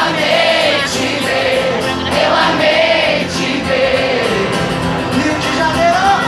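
Live music with singing in which many voices sing together, an audience singing along with the song.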